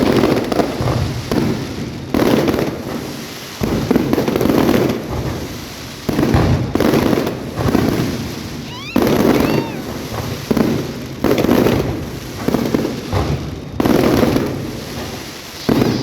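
Aerial fireworks shells bursting in a steady string of loud booms, one every one to two seconds, each dying away before the next.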